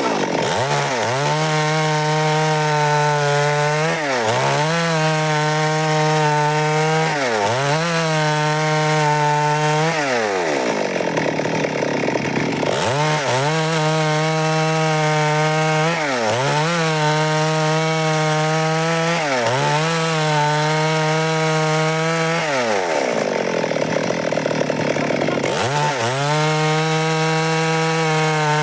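Two-stroke Stihl chainsaw running at high revs while cutting through a wooden block. Its engine note dips and recovers about every three seconds as the chain bites in, and twice turns rough for a couple of seconds.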